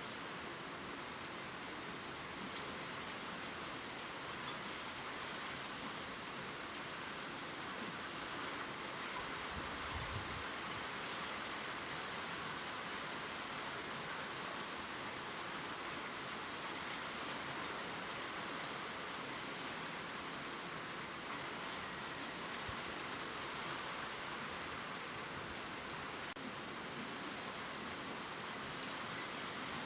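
Steady gentle rain pattering on leaves, an even hiss with scattered drop ticks, and a brief low thump about ten seconds in.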